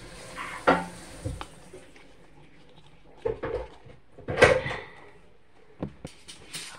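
Several short knocks and clatters from a drink carton and the phone being handled close to the microphone, the loudest about four and a half seconds in.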